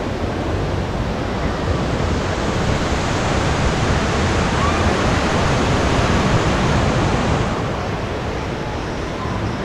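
Steady rushing of beach surf mixed with wind buffeting the microphone. It swells in the middle and eases off near the end.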